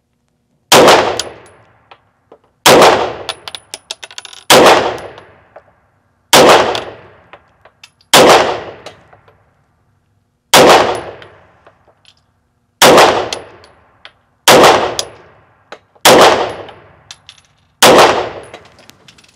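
Grand Power X-Calibur 9mm pistol fired ten times at a slow aimed pace, about one shot every two seconds, each report echoing off the walls of the indoor range. Faint small ticks fall between the shots.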